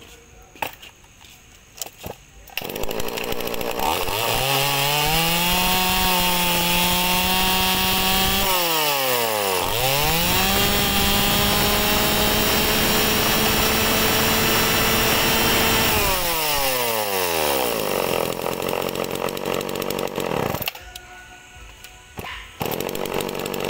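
Shindaiwa 305 two-stroke chainsaw, 31 cc, starting up about three seconds in after a few clicks. It is revved to high speed and held there twice, with a short dip between. It then winds down toward idle and cuts out about twenty seconds in.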